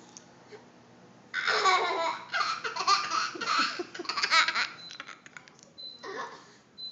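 A young girl laughing: a run of giggles lasting about three seconds, then one short burst of laughter near the end.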